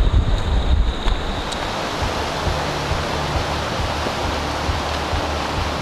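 Wind buffeting the microphone over a rushing mountain creek, then from about a second and a half in the steady rush of creek water tumbling over rocks.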